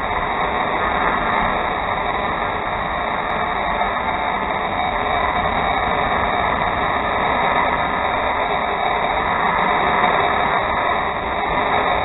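Cutting torch hissing steadily as it burns through metal, with no break and no change in pitch.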